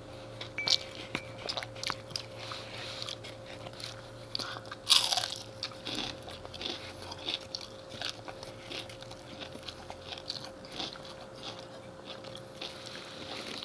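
Close-up crunching and chewing as crispy KFC fried chicken is bitten into and eaten by hand: many short, sharp crunches, the loudest about five seconds in. A faint steady hum runs underneath.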